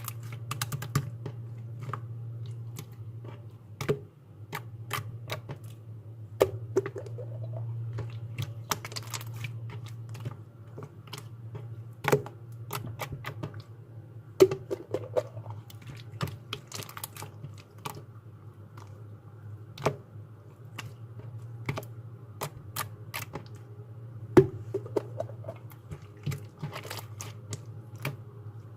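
Slime being pressed and poked by hand, giving irregular crisp clicks and small pops, a few of them louder snaps, over a steady low hum.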